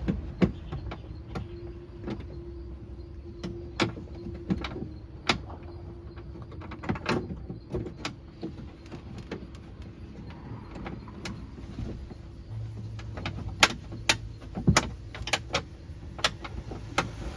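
Irregular sharp metallic clicks and knocks of a socket and bolt being worked in by hand inside a car door, at the door handle mount. A faint steady hum runs under the first half.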